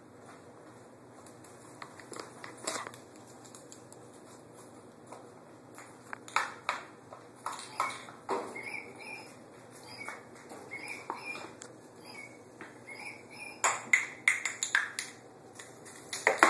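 Kittens playing on a wooden floor: patter and scrabbling of small paws with scattered clicks and knocks, busiest a little before the end, and a few short, faint high squeaks in the middle.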